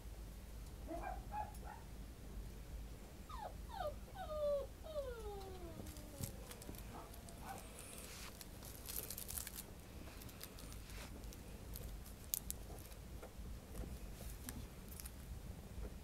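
Kaninchen dachshund puppy whimpering: a few short yips about a second in, then a run of whines, each falling in pitch, between about three and six seconds in, the last drawn out. Faint clicks and rustling follow.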